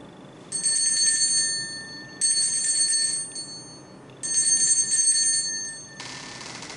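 Altar bells rung three times at the elevation of the chalice during the consecration: three ringing peals, each a bright shake that rings on for about a second before the next.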